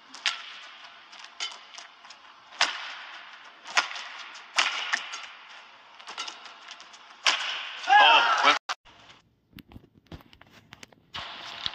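Badminton rally in an arena: sharp racket strikes on the shuttlecock, a second or so apart, over steady crowd noise. A loud yell rises and falls about eight seconds in, and then the sound nearly drops out for about two seconds.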